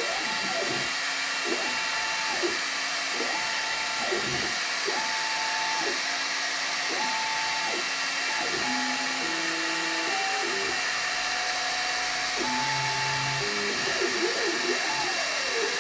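Fabric laser cutting machine at work: the gantry motors whine, rising in pitch, holding and falling again each time the head makes a move, over a steady hiss.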